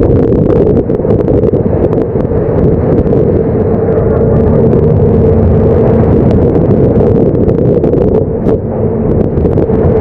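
Storm noise on the open deck of a longline fishing boat: a loud, steady rumble of wind on the microphone and waves breaking over the deck, with a steady machinery hum beneath it.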